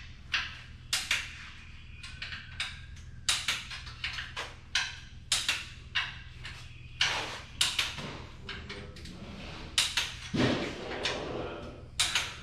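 Hand tools clicking and clinking against the metal parts of a 997 cubic inch engine being assembled, in short clusters of sharp strikes with one duller knock about ten seconds in, over a steady low hum.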